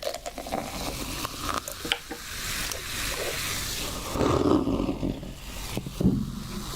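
Beer poured and fizzing, heard close to the microphone, with a steady hiss of foam and a fuller pouring sound about four seconds in.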